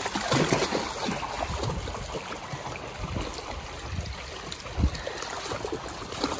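Shallow, rocky stream running, with irregular splashes from feet and dog paws wading through the water, mostly in the first couple of seconds. A single dull thump about five seconds in.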